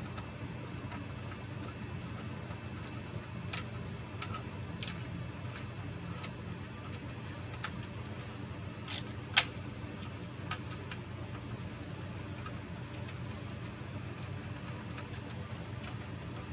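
Scattered light clicks and taps of a hand screwdriver and metal parts as screws are worked on an MEI 2000-series bill validator's bezel, with one sharper click about nine seconds in. A steady low hum runs underneath.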